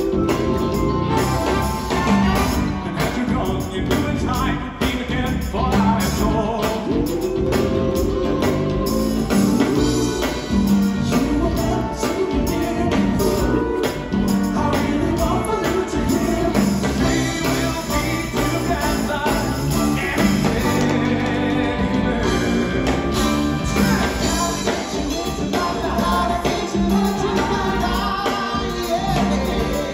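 Live funk-soul band playing loud: a horn section, drum kit and hand percussion, electric bass, guitar and keyboards, with some singing.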